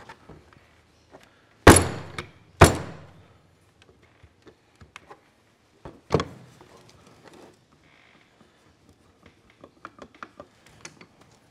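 Heavy metal knocks from a John Deere 420 starter motor as its seized armature is worked loose: two loud knocks about a second apart, a third a few seconds later, each ringing briefly, with light clicks and taps between. The armature has seized in its end bush.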